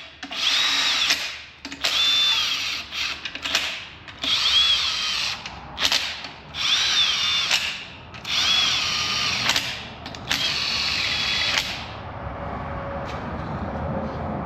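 Cordless impact wrench spinning engine bolts down in about seven short bursts, with a motor whine rising and falling with the trigger. The bolts are run down snug without letting the tool hammer, ahead of torquing to 15 ft-lb plus 180 degrees.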